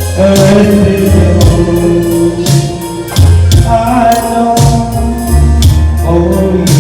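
Background music with a strong bass line and a steady percussion beat.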